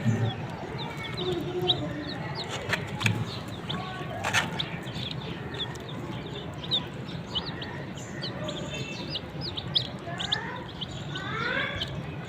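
Desi chicken chicks peeping, a steady scatter of many short, high chirps. A few sharp clicks come in the first half, and near the end a run of lower calls slides in pitch.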